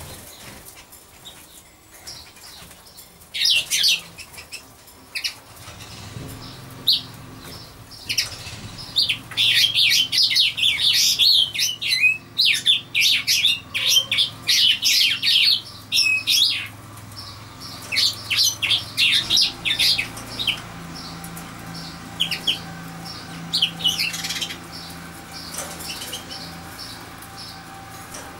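Small birds chirping in rapid high bursts, on and off, with a faint steady low hum underneath from about six seconds in.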